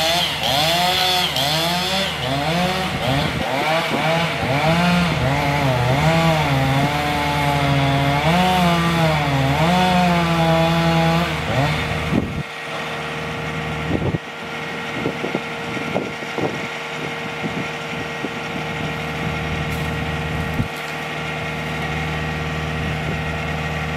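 Chainsaw cutting into a tree, its engine at high revs with the pitch sagging and recovering again and again as the chain bogs in the wood. About 12 seconds in it drops back to a lower, steady idle.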